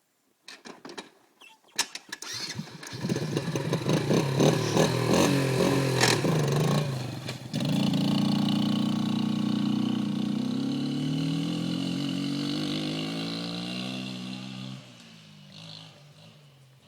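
ATV engine starting: a few clicks, then it catches about three seconds in and runs unevenly with quick changes in speed. About halfway through it settles into a louder, steadier run whose pitch drifts slowly, then it drops much quieter near the end.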